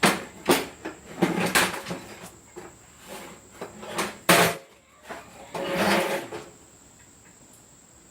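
Clunks, knocks and a scrape of a heavy electric motor being handled onto its stand: a string of sharp knocks, the loudest about four seconds in, then a longer scrape around six seconds in.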